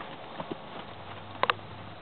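Horse's hooves hitting the sand of an arena at a canter: a few soft thuds, with a sharper double knock about a second and a half in.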